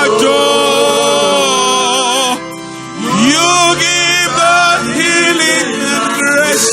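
Gospel worship singing with music: a voice holds long, wavering notes, eases off briefly about two and a half seconds in, then comes back with rising phrases.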